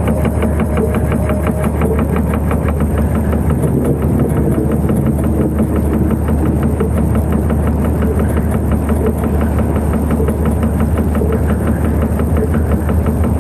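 Dark ambient music built on a steady, loud, machine-like low drone with a rapid, even pulse running through it and a thin, steady high whine on top.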